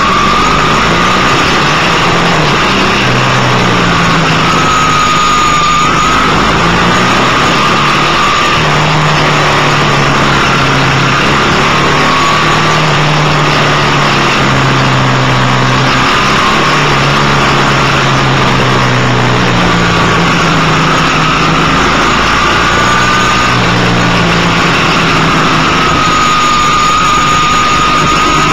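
BMW R1100GS's 1085 cc boxer-twin engine running under way, its pitch rising and falling as the speed changes, under a steady rush of wind noise.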